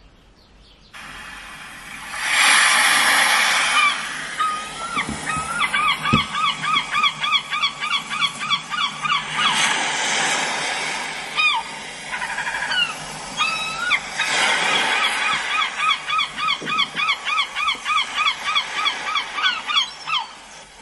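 Field recording of the sea: waves washing in, three swells of surf, with seabirds calling in long runs of quick repeated calls, several a second.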